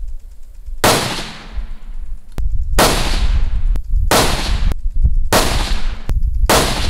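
Five rifle shots of a five-shot group, fired about a second or two apart and heard from beside the target 100 yards downrange. Each report is sudden and trails off as it echoes, with a faint sharp click just before most of them.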